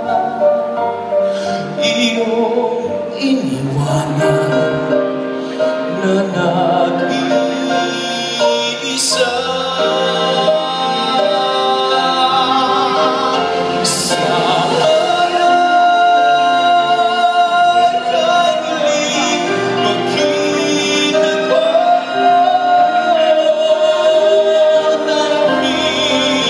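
Male singer performing a slow ballad through a microphone with a live orchestra accompanying, the voice holding long sustained notes. Two brief sharp accents come in the orchestra about nine and fourteen seconds in.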